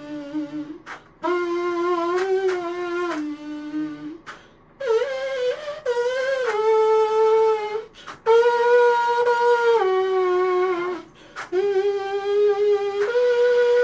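Experimental 3D-printed rectangular trumpet playing a slow melody: held notes stepping up and down in pitch, in short phrases with brief pauses between them.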